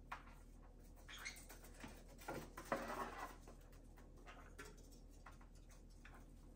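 Faint, scattered scratching and light tapping of a conure's claws on a hard painted top as the bird walks and shuffles, busiest about two to three seconds in.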